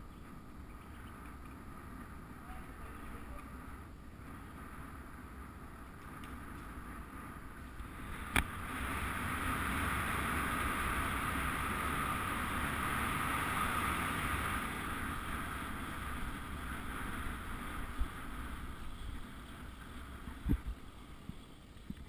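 Wind buffeting a bike-mounted camera's microphone, with tyre rumble on asphalt, during a fast road-bike descent. A sharp click about eight seconds in, then a louder rushing hiss that holds for several seconds before easing, with a couple of short thumps near the end.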